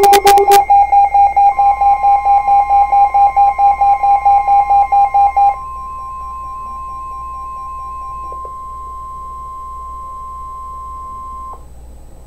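Rapid, loud pulsing alert beeps sound over the steady NOAA Weather Radio warning alarm tone. The beeps stop about five and a half seconds in, and the alarm tone runs on alone until it cuts off near the end, leaving faint radio hiss.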